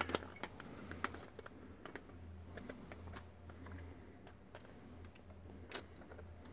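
Scattered light clicks and taps from handling Bahco 7224 slip-joint pliers, the metal jaws knocking and scraping against a plastic pipe fitting as they are closed around it. The sharpest click comes right at the start.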